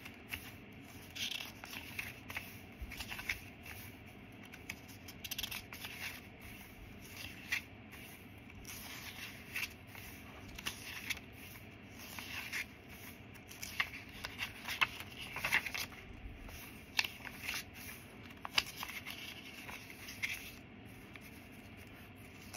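Paper pages, cards and tags of a handmade junk journal being turned and handled: irregular paper rustles, scrapes and light taps.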